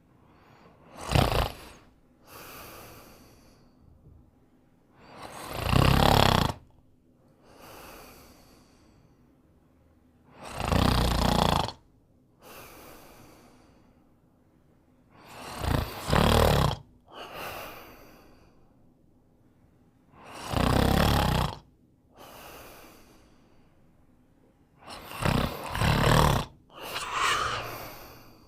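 A sleeping dog snoring: a loud snore about every five seconds, six in all, each followed by a softer breath.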